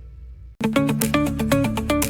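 Music: a soft sustained intro fades, cuts out briefly, and about half a second in the full track comes in loud, with a fast repeating plucked-note riff over a steady beat and bass.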